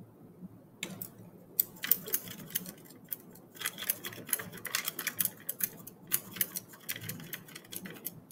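A glass test tube of sand-like silicon dioxide grains and small rocks in water being mixed: rapid, irregular clicking and rattling of grit against the glass, starting about a second in.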